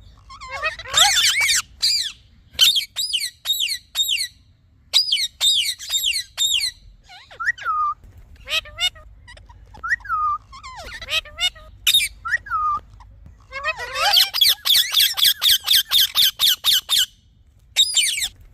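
Indian ringneck parakeet giving shrill, sweeping chirps and squawks in short bursts, then a fast run of repeated calls, about five a second, near the end.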